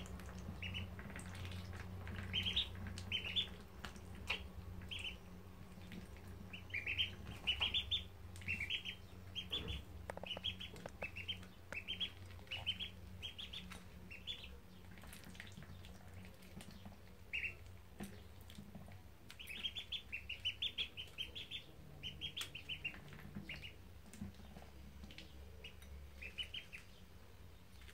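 Ducklings peeping, a run of short, high calls repeated several to the second, broken by pauses of a few seconds, and coming in bursts near the start, in the middle and near the end.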